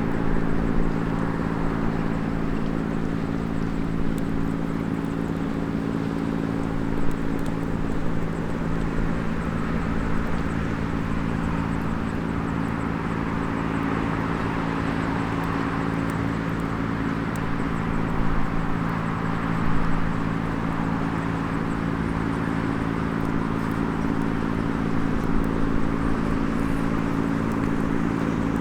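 Small wood campfire with a few faint crackles, over a steady low engine-like hum that is the loudest sound.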